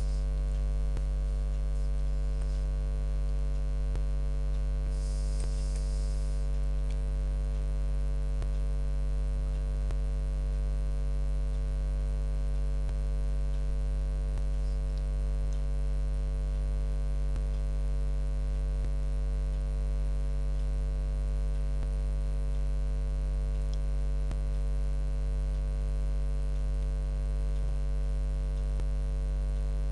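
Steady electrical mains hum with its stack of overtones, constant and unchanging, picked up by the recording chain between spoken passages.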